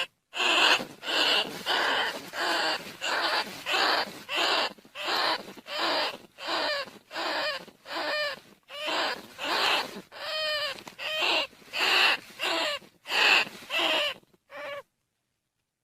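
Rat decoy call for luring rice-field and bandicoot rats: a steady string of short, high, shrill squeaks, about one and a half a second, some bending in pitch. It stops abruptly near the end.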